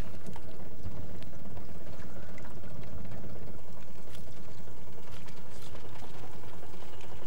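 Steady rush of water along a moving fishing boat, with a low motor rumble underneath.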